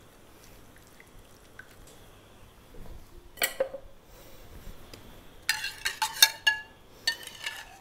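Metal kitchen utensils knocking and clinking against pans: a couple of knocks about halfway through, then a quick run of sharp clinks that ring briefly, and a few more near the end.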